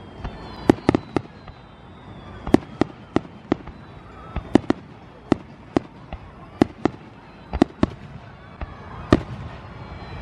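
Aerial firework shells bursting in quick succession: a string of sharp bangs, about two a second at uneven spacing.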